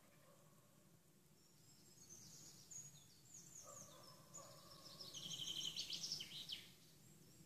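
Small songbirds singing among trees: scattered high chirps and whistles, building to a rapid trill of quick repeated notes about five seconds in, over a faint steady background hiss.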